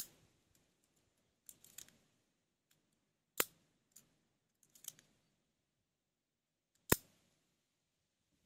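Spring-loaded mechanism of a handmade automatic knife being worked: three sharp clicks about three and a half seconds apart, with softer clicks and light handling noises between them.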